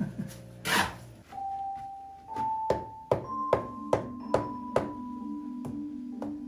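A trowel scrapes across wet mortar on brickwork, then background music comes in about a second in, with held notes and a steady tapping beat.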